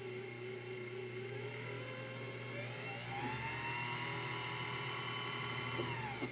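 Electric sewing machine motor spinning a double-pulley speed reducer through a round belt and a V belt, with the hand wheel disconnected: a steady whir. About three seconds in it speeds up with a rising pitch, holds, then slows slightly and stops abruptly at the end.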